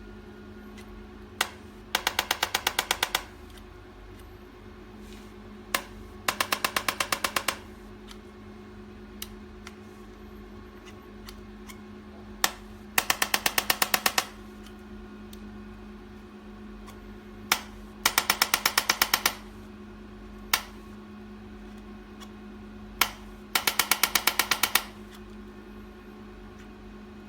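Electric chiropractic adjusting gun firing its thrusts: five bursts of rapid clicking impacts, about ten a second for just over a second each. Each burst comes about half a second after a single sharp click, over a steady low hum.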